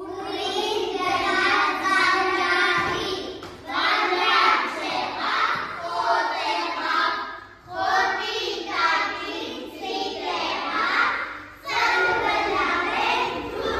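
A group of young children singing together, in phrases of three to four seconds with short breaks between them.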